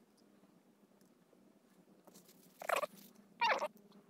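A cat meowing twice, short calls about a second apart, over a faint steady low hum.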